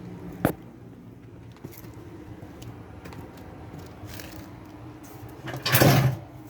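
Metal parts and tools being handled during washer reassembly: a sharp click about half a second in, then a louder jangling clatter near the end.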